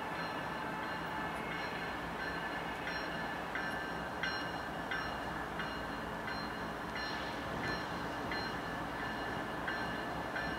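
Approaching train running steadily in the distance, with a bell ringing at an even pace of about three strikes every two seconds.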